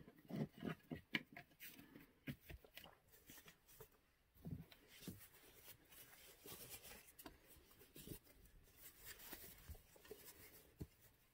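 Faint handling noises: scattered light taps and rustles as a foam block and a sheet of fabric are set down and moved about on a wooden worktable.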